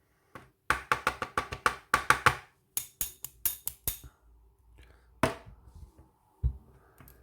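Quick run of small clicks and knocks as tools and small objects are moved about on a hard work surface, then two single knocks near the end.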